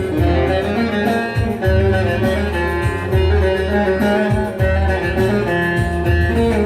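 Instrumental break of a Turkish folk-pop song: a plucked-string melody over bowed strings and a pulsing bass, with a steady beat.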